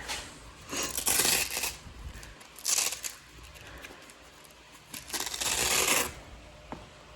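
Sandpaper being handled on a hand sanding pad, three short scratchy tearing noises, the last about a second long.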